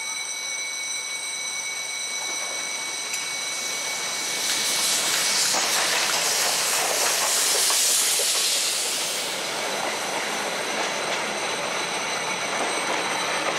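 Prussian P8 steam locomotive running tender-first past at speed, with a loud hiss of steam as the engine goes by about halfway through. After it, the clatter of wheels over rail joints as its passenger coaches roll past.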